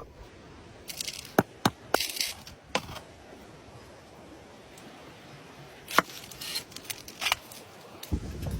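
Scattered sharp clicks and knocks, about six in all, with a few short scrapes, from food being handled and prepared for cooking.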